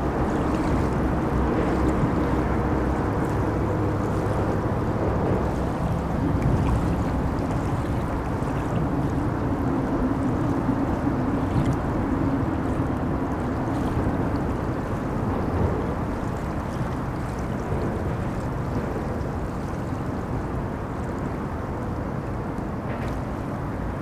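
Moving river water, a steady rushing, under a low drone of traffic crossing a bridge. The traffic hum fades about two-thirds of the way through.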